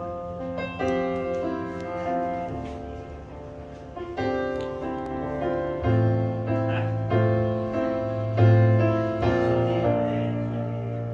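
Piano music played back over a pair of floor-standing hi-fi loudspeakers in a demonstration room: struck chords ring and decay, and a deep low note sounds under them from about six seconds in.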